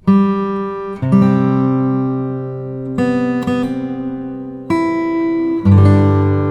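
Background music of an acoustic guitar strumming chords, a new chord struck every second or two and left to ring out.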